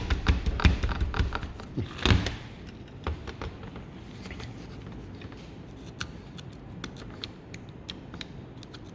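Small metal engine parts being handled and taken apart by hand: a quick run of light clicks and taps, one louder scraping clunk about two seconds in, then only an occasional faint click.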